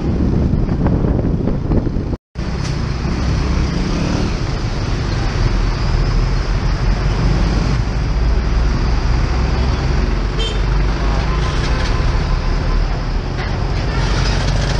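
Motorbike riding through traffic: its engine running under steady wind noise on the microphone, with the sound of surrounding road traffic. The sound cuts out completely for a moment about two seconds in.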